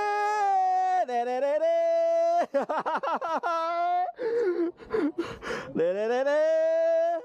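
A person's voice singing or wailing long drawn-out notes that slide from one pitch to the next. A wavering, warbling stretch comes a few seconds in, followed by a breathy, noisy patch.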